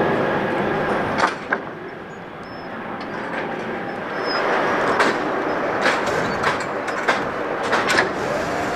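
Distant aircraft engine noise, a steady rumble that dips about a second in and then slowly swells again. About eight sharp clicks or knocks sound over it.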